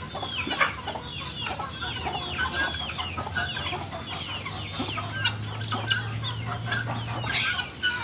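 A flock of helmeted guineafowl calling, many harsh, rapid calls that fall in pitch and overlap without pause.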